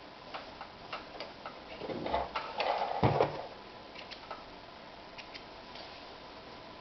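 Sewing machine and fabric being handled with the machine not stitching: scattered light clicks, with a short burst of rustling and a knock about two to three seconds in.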